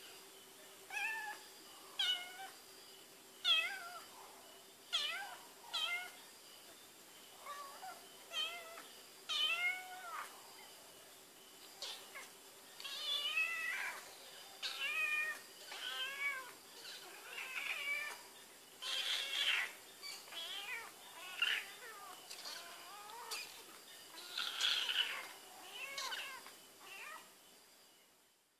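A cat meowing over and over, about twenty meows spaced a second or so apart. The later meows are longer and more drawn out.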